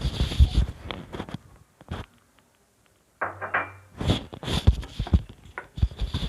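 Paneer being added to a bowl of chilli-powder marinade and mixed in: irregular knocks and clatter against the bowl, with a brief silent break about halfway through.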